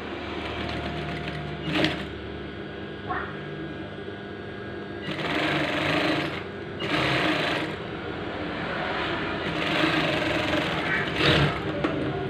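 Industrial sewing machine stitching fabric in several short runs, louder during each run, with a sharp click about two seconds in and another near the end.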